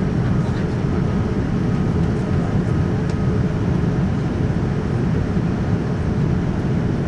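Steady cabin noise inside a Boeing 787-9 in flight: a low, even rumble of airflow and its Rolls-Royce Trent 1000 engines.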